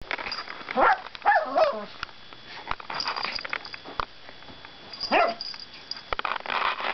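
A pet dog giving short, yelping barks, about a second in, twice more just after, and again about five seconds in, with clicks and scuffling noise between.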